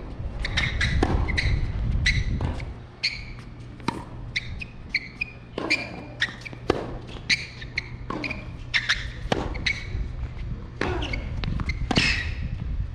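Tennis rally on a hard court: sharp ball strikes off racket strings and ball bounces, irregularly spaced, several each second at the busiest points, over a low rumble.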